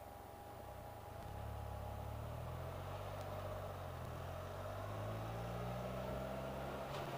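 Can-Am Spyder RT motor trike's engine running while riding, getting louder about a second in and slowly rising in pitch as it picks up speed.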